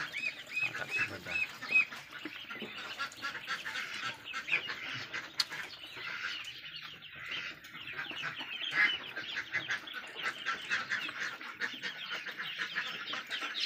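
A large brood of ducklings, laying-breed and Muscovy, peeping continuously: dozens of short, high chirps overlapping, with a run of about five clear peeps in the first two seconds.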